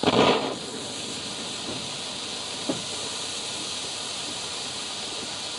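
Kimbolton Lava Flow bengal flame catching with a loud burst of noise in the first half-second, then burning with a steady hiss. One short crack about two and a half seconds in.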